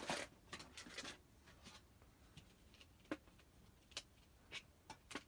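Faint crackling of plastic wrap and a few light clicks as a plastic-wrapped card tin is handled and the wrap is pulled at.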